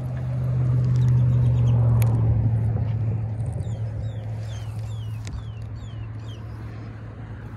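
A steady low rumble that swells over the first two seconds and then slowly fades, with a sharp click about two seconds in. In the second half a bird sings a run of short, quickly repeated descending chirps.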